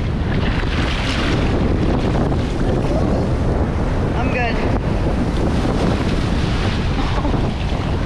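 Surf breaking and whitewater churning around a handheld action camera at water level, with wind buffeting the microphone. A brief voice cuts in about four seconds in.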